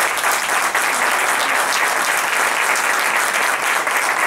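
Spectators applauding: dense, steady clapping.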